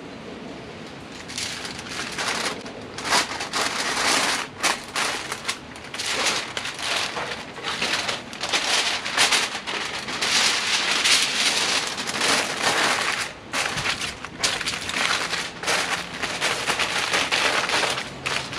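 Aluminium foil crinkling and crumpling as it is folded and crimped around a rack of ribs. It comes in irregular rustling bursts that start about a second in and are loudest around the middle.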